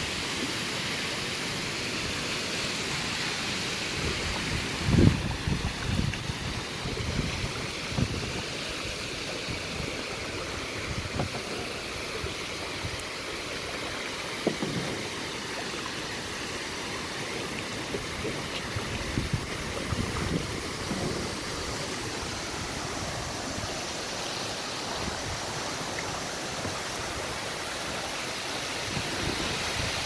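Waterfall pouring from a cliff into the sea, a steady rushing hiss, with occasional low thumps and splashes from kayak paddling. The loudest thump comes about five seconds in.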